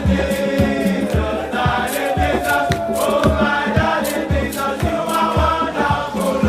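Background music: a choral song with group singing over a steady beat.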